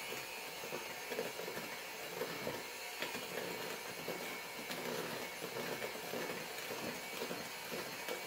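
Electric hand mixer running steadily, its beaters churning thick cake batter in a bowl while flour is spooned in.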